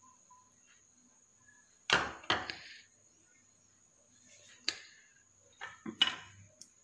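Tableware being handled: knocks and clicks of plates on a table, two louder strokes about two seconds in, a sharp click near five seconds and a quick cluster of knocks around six seconds. A faint steady high whine runs underneath.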